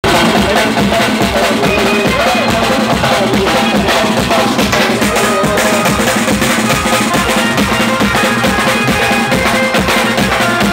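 Live band playing loud instrumental music over a PA system: a steady, driving drum and percussion beat under a sustained keyboard melody.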